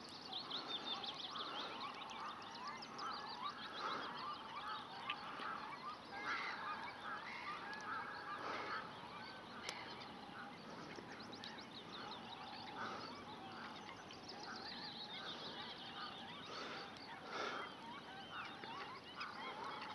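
A faint, busy chorus of many birds calling over the lake: short honking and chirping calls repeated and overlapping.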